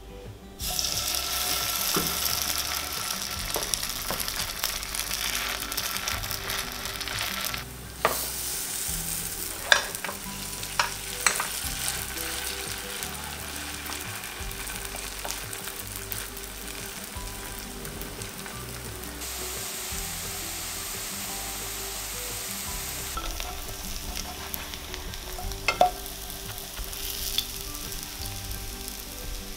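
Grated-potato pancake batter sizzling in hot oil in a nonstick frying pan. The sizzle starts suddenly about half a second in as the batter goes into the oil, and a few sharp clicks come from the wooden spatula knocking against the pan.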